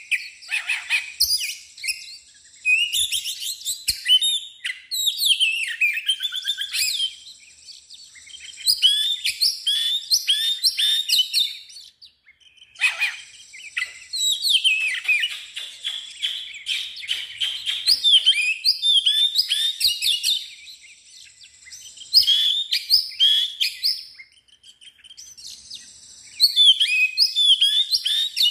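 Oriental magpie-robin (kacer) singing hard in full song: rapid, varied whistled phrases in bursts of a few seconds, broken by short pauses of a second or two.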